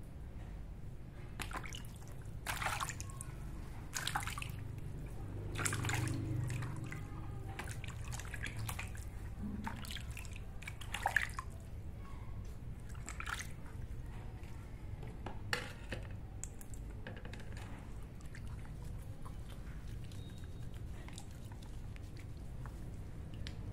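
Water in a plastic basin splashing and dripping as hands scoop and rub it over a baby monkey being bathed, in irregular small splashes and drips.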